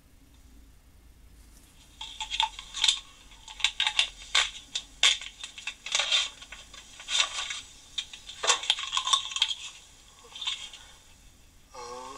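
Small metal tools clinking and rattling as they are handled and set into a wooden drawer: a quick run of sharp clinks and scrapes from about two seconds in, stopping shortly before the end.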